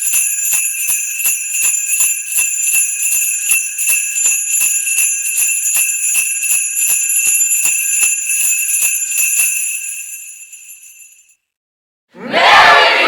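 Sleigh bells shaken in a steady rhythm, about two to three shakes a second, ringing on between strokes and fading out about ten seconds in. After a brief gap, a loud burst of crowd voices starts near the end.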